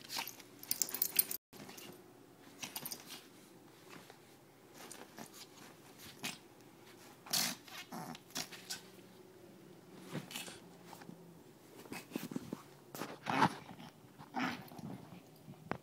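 Small Chihuahua–pug mix dog playing and wrestling with a hand on a cushioned dog bed: irregular short bursts of play noise with low play growls, mixed with rustling of the bed cover.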